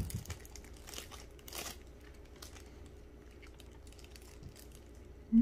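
Light rustling and crinkling of takeout chicken packaging while eating, with a soft knock right at the start and a brief louder rustle about a second and a half in, among scattered light clicks.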